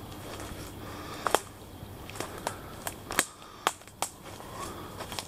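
Footsteps through dry leaf litter and fallen sticks, with irregular sharp snaps and crackles of twigs breaking underfoot.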